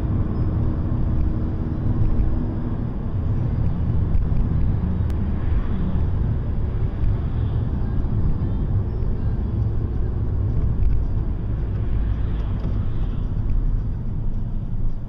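Car driving on a town road, heard from inside the cabin: a steady low rumble of engine and tyre noise.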